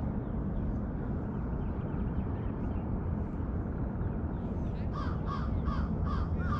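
A bird calling in a quick run of about five repeated calls near the end, over a steady low rumble.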